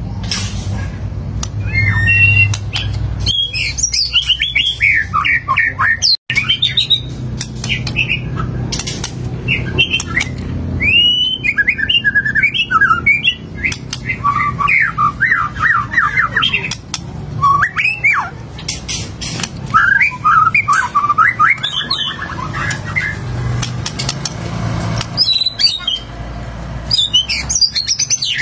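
White-rumped shama (murai batu) singing a long, varied song: clear whistles mixed with rapid chattering trills and harsh notes, phrase after phrase with only short pauses.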